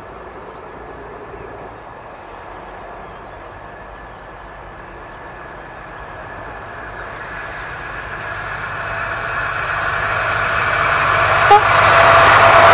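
DB class 218 diesel-hydraulic locomotive hauling a passenger train, its engine and wheels growing steadily louder as it approaches from about halfway through. A short, sharp tone sounds about a second before the end.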